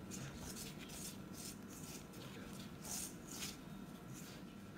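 A hand rubbing yogurt into dry flour in a stainless steel bowl: faint, quick, scratchy strokes, about three a second.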